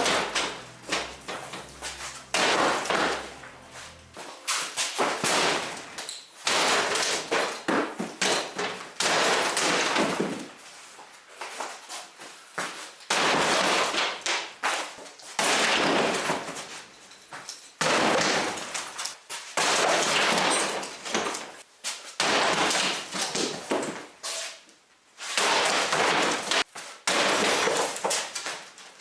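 Garage cabinets being smashed apart: repeated heavy crashing blows in irregular runs, with clattering and breaking debris between them.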